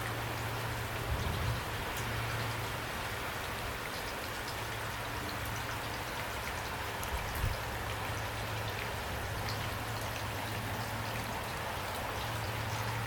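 Steady rain with scattered individual drops ticking and pattering, over a low steady hum. There is a brief low thump about a second in and another at about seven and a half seconds.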